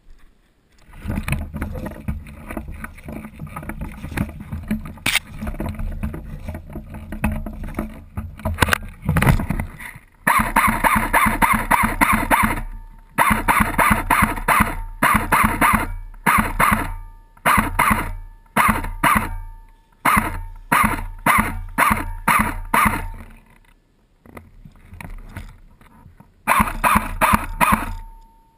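Airsoft M4 CQB rifle firing many short bursts of rapid shots, one after another with brief pauses, from about ten seconds in. Before that, an irregular stretch of rustling movement noise.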